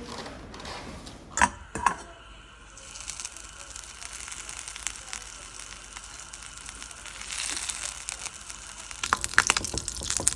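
Fat sizzling in a nonstick frying pan, a steady high hiss. Near the end, eggs frying in it are stirred with a silicone spatula that scrapes and clicks against the pan. There are two sharp knocks a little over a second in.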